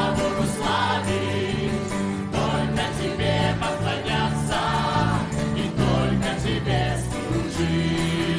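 Live church worship music: a choir and a female lead singer on a microphone, backed by a band with guitars, singing a praise song.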